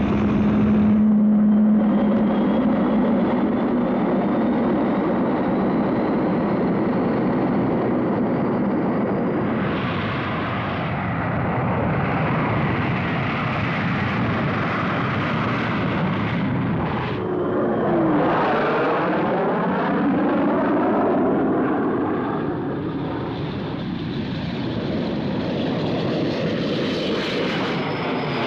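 Jet fighter engines running at full power on takeoff, a loud, steady roar. About 18 seconds in, a jet passes close by and the roar sweeps through with a falling tone.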